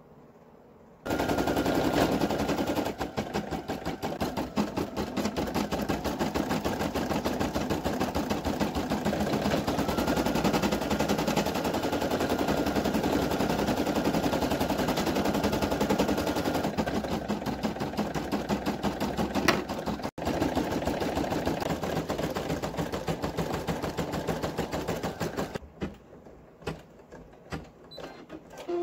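Brother PE800 embroidery machine stitching at speed, a steady rapid rattle of needle strokes that starts about a second in. Near the end it gives way to a few scattered clicks.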